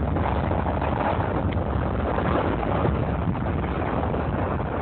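Airbus A330 airliner's twin jet engines at takeoff thrust as the aircraft lifts off, a steady noise with no breaks.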